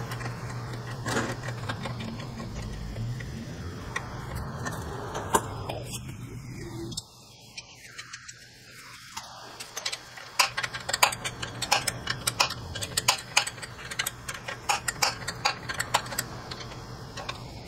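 A steady low hum that cuts off suddenly about seven seconds in, then a quick, irregular run of light metallic clicks and clinks from a hand wrench working a fastener on a car's AC condenser.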